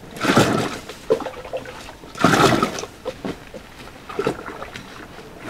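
Cañihua grain poured from a plastic cup into a metal pot of water, two pours with a hissing rush each, then a hand swishing the grain in the water for washing.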